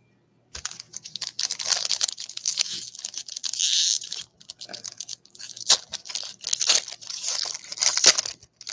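Foil wrapper of a 2021 baseball trading card pack being torn open and crinkled by hand. The crackling starts about half a second in, with a longer tearing rip about three and a half seconds in and sharp crackles near the end.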